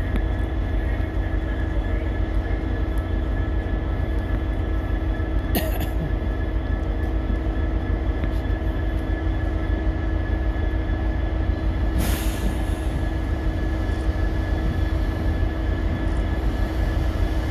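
A Northern Class 150 Sprinter diesel multiple unit approaches and runs into the platform with a steady low rumble and a steady whine. There are two short hisses, about five and a half and twelve seconds in.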